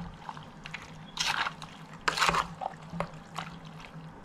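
Hands mixing a wet masala marinade into raw chicken pieces, squelching irregularly, with two louder wet squelches about one and two seconds in.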